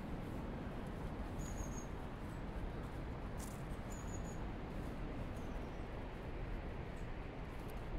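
Steady rushing of a full river. Two short, high chirps sound over it about a second and a half in and again about four seconds in.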